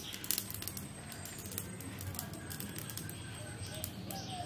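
Pot of potatoes boiling on a wood-fired clay stove: a steady low bubbling hiss, with a few light clicks and crackles in the first second or so.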